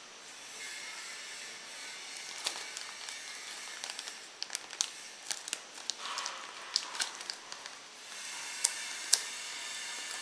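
Thin clear plastic wrapping crinkling and crackling as hands peel it off, with sharp scattered crackles from about two seconds in over a steady hiss.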